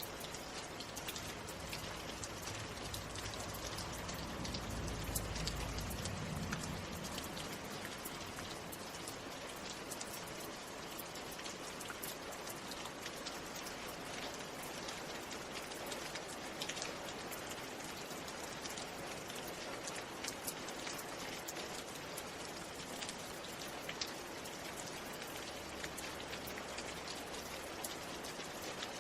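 Steady rain falling, with many small drop ticks over an even hiss. A brief low rumble comes about five seconds in.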